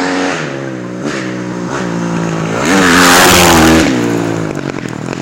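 An engine revving up and down, with one loud surge of revs about three seconds in.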